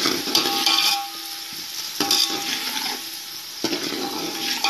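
A spoon stirring a thick yogurt and spice paste in a metal pot, scraping around the pot in three sweeps, each with a faint ringing from the metal.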